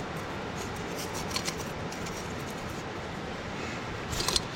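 Small clicks and light metallic rattling of engine parts being handled by hand, with a short, louder cluster of clicks near the end, over a steady background hiss.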